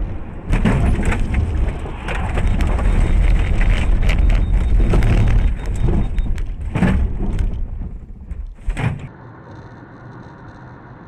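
Car driving fast on a wet road, heard from inside the cabin: loud rumbling road and wind noise with a few sharp knocks, cutting about nine seconds in to a quieter steady hum of another car driving.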